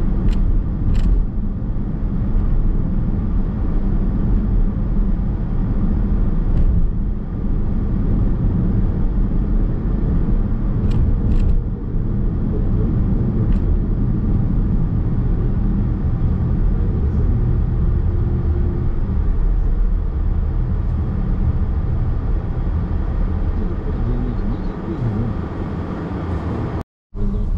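Nissan X-Trail Hybrid driving, heard from inside the cabin: a steady low rumble of tyre and road noise with a few faint ticks. The sound cuts out completely for a moment near the end.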